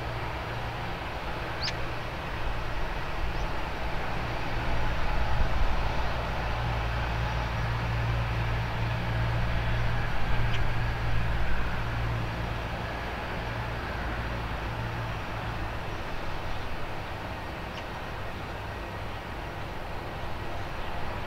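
Airbus A320's jet engines at takeoff power on a wet runway: a steady low rumble that swells about a few seconds in and eases off near the end.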